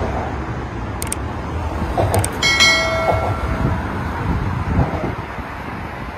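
Steady traffic rumble from the bridge roadway, with two sharp mouse-click sounds about one and two seconds in, then a bell-like notification ding that rings out for about a second: a subscribe-button sound effect.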